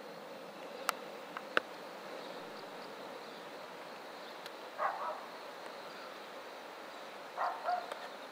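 Outdoor background ambience: a steady faint hiss, with two sharp clicks about a second in and two brief sounds, one around the middle and one near the end. No chime is heard.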